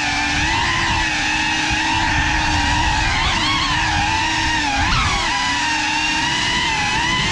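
Brushless motors and ducted propellers of a 6S Geprc Cinelog35 cinewhoop drone whining in flight. The pitch wavers with the throttle and bends sharply about three and five seconds in.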